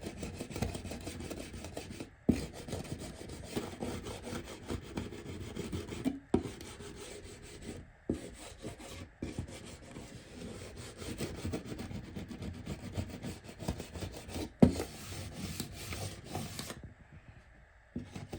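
A track-cleaning rubber scrubbed back and forth along model railway rails in repeated spells, with brief pauses and a few sharp knocks between them, cleaning the track where a locomotive caught.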